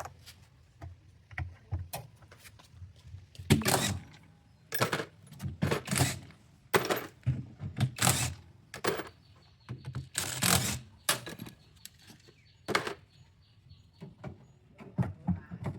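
Irregular knocks, clatters and scrapes of hard parts being handled and worked during repair and cleaning of a washing machine, over a low hum.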